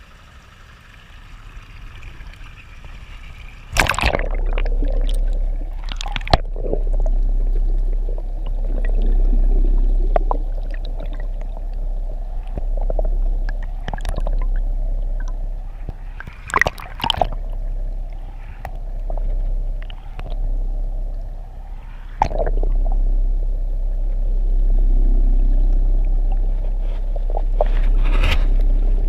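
Muffled underwater sound from a submerged action camera: a steady deep rumble with sloshing and gurgling water, broken by several sharp knocks. The first knock comes about four seconds in, after a quieter start.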